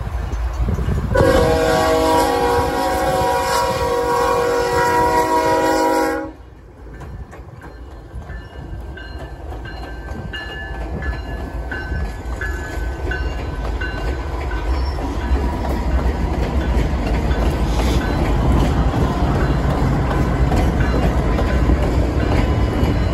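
Union Pacific diesel freight locomotives: the lead unit's air horn sounds one long chord-like blast for a grade crossing and cuts off suddenly about six seconds in. Then the low diesel rumble of the locomotives grows steadily louder as they roll past close by on the rails.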